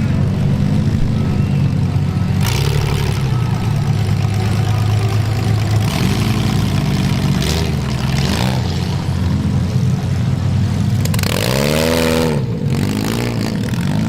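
Demolition derby cars' engines running loud, revving up and down several times, with one big rise and fall in pitch near the end.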